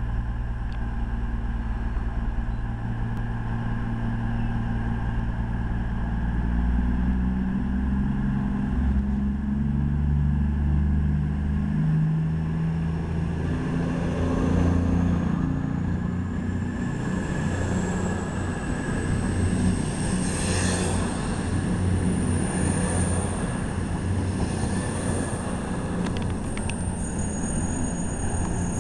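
Class 221 Super Voyager diesel-electric train pulling away from a station platform: its underfloor Cummins diesel engines run at idle, then power up about seven seconds in. The cars then rumble past with a high whine that climbs in pitch as the train accelerates away.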